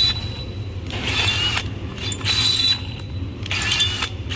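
Power drill with a Matco HyperStep stepped bit cutting through a cast-iron brake rotor. The cutting comes in short spells, with a high squeal from the bit in the metal, over a steady low hum.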